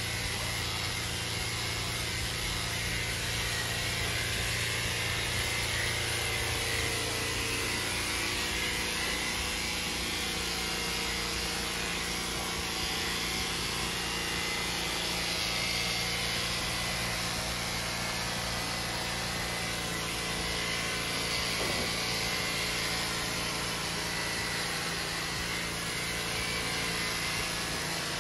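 Electric horse clippers running steadily, buzzing as they cut through a horse's winter coat. The low part of the hum drops a little about eight seconds in.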